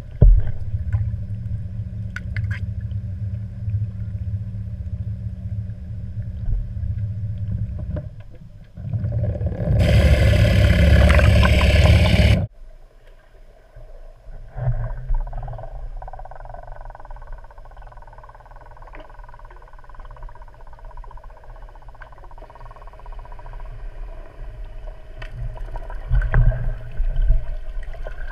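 A small boat motor and its propeller heard through an underwater camera: a steady low hum for the first eight seconds, a loud rush of water noise from about ten to twelve seconds in, then a quieter low rumble with gurgling.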